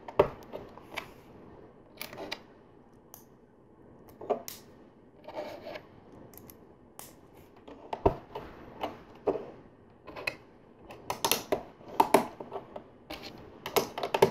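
LEGO bricks clicking and snapping together as pieces are pressed onto a model: scattered sharp plastic clicks, coming thicker in the last few seconds.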